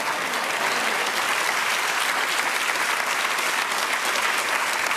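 Audience applauding: steady, dense clapping from a seated crowd.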